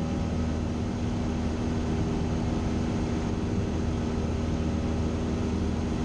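Single-engine Cessna's piston engine and propeller droning steadily in cruise flight, heard from inside the cabin, with an even hum that does not change.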